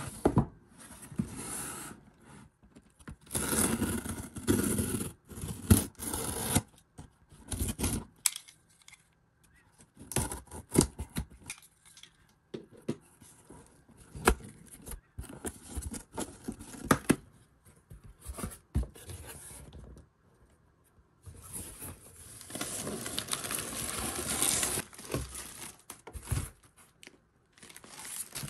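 A cardboard shipping box being opened by hand: packing tape tearing and cardboard scraping and knocking, in uneven bursts with short pauses. Near the end, a clear plastic bag around the handbag crinkles.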